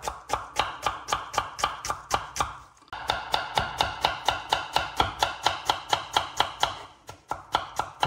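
Kitchen knife finely chopping a shallot on a wooden cutting board: quick, even strokes about five a second, with a short pause about three seconds in.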